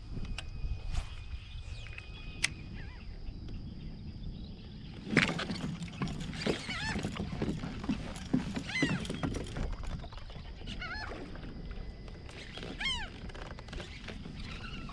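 A flock of birds feeding over the water, calling with many short overlapping calls. The calls are sparse at first and become dense from about five seconds in, where a sharp knock is the loudest sound.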